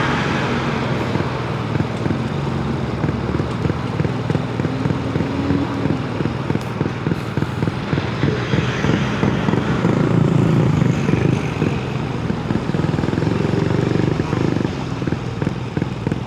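Honda Grom's single-cylinder engine running under way, its exhaust pulsing steadily, the pitch shifting as it speeds up and eases off, loudest about ten seconds in.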